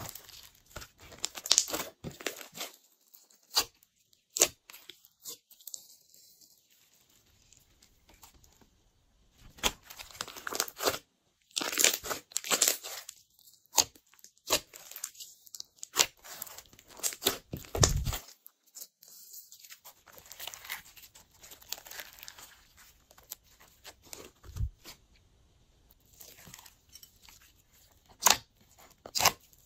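Glossy slime squeezed and kneaded by hand: irregular sticky crackles and sharp pops as the slime is pressed and pulled apart, with quiet pauses between handfuls. A dull thump sounds a little past halfway.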